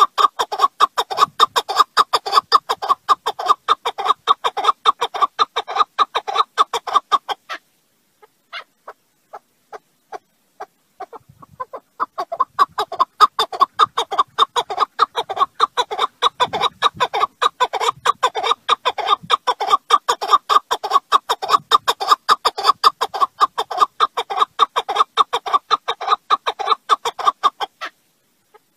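Partridge (keklik) calling in a rapid run of short, repeated notes, several a second. The calling thins to scattered notes about seven seconds in, picks up fully again a few seconds later, and stops just before the end.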